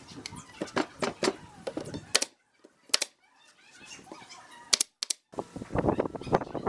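Four sharp single shots of a pneumatic nail gun driving brads into pine boards, spaced by short silences, the last two close together. They come between light knocks and clattering of wooden parts being handled.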